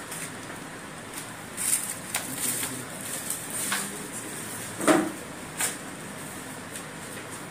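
Clothes being handled and unfolded on a shop counter: fabric and packaging rustling in short bursts, with scattered clicks and a louder bump about five seconds in.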